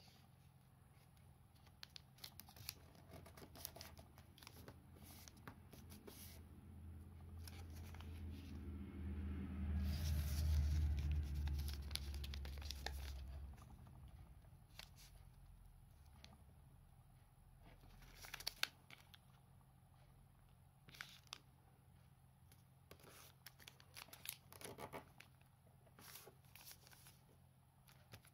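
Origami paper rustling and crinkling under the fingers as it is creased and folded, in short scattered crackles. In the middle a low rumble swells up and fades away.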